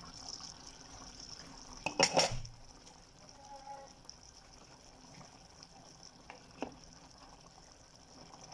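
Chicken caldereta simmering in a pan with a faint steady hiss, broken by a short clatter about two seconds in as the glass pot lid is set down. Later a wooden spoon stirs the stew, with a couple of light knocks against the pan.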